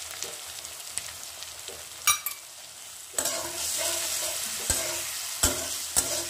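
Onions, capsicum and spice paste sizzling in oil in a metal kadhai, stirred with a wooden spatula that scrapes and knocks against the pan. The sizzle grows louder about three seconds in as the paste is worked into the hot oil, with a few sharp knocks of the spatula after that.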